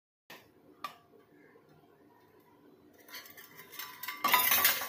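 Stainless-steel measuring cups knocking and clattering against a plastic mixing bowl as flour is tipped out: a sharp knock about a second in, then a louder rattle of metal kitchenware near the end.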